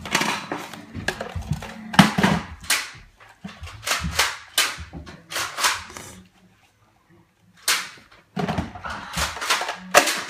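Nerf blasters firing: a rapid, irregular series of sharp pops in clusters, about a dozen shots, with a brief pause a little after the middle.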